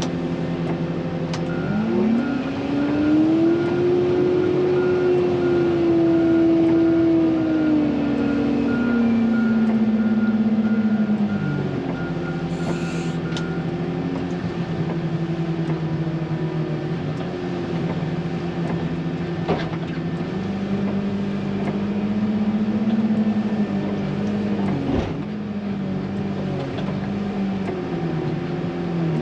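Diesel engine of an XCMG wheel loader working, its pitch rising as it revs up, holding, then dropping back, and rising again past the middle. A reversing alarm beeps steadily through roughly the first half.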